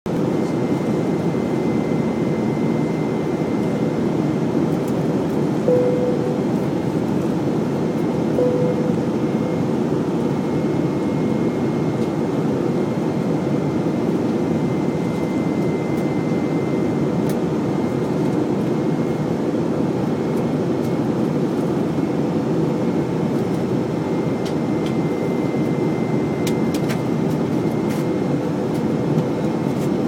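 Steady cabin noise of a jet airliner in flight, heard at a window seat beside the wing: a constant drone of engines and rushing air, with a faint steady high whine above it.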